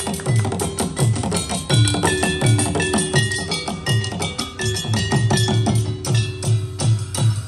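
Rampak bedug: large bedug drums beaten with sticks, deep booming strokes about twice a second with fast wooden stick clicks in between. A melody of held notes runs over the drumming.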